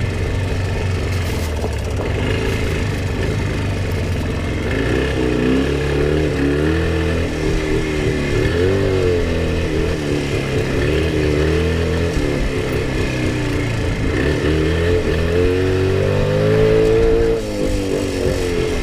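Jawa 350 two-stroke twin motorcycle engine under riding load, its revs rising and falling every second or two as the throttle is opened and closed off-road. The engine is running lean, which the rider says.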